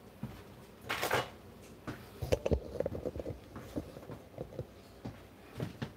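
Kitchen handling noises: scattered light knocks and clatter, with a brief scrape about a second in and a couple of heavier thumps about two and a half seconds in.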